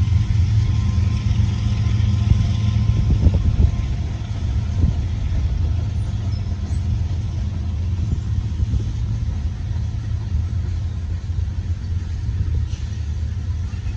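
Freight train of tank cars rolling past, a steady low rumble of steel wheels on rail, with a few sharp clicks about 3 to 5 seconds in.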